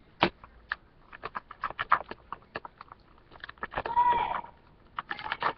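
Sticky, half-set borax slime being stirred and worked, giving irregular wet clicks and pops. A short high voice sound about four seconds in.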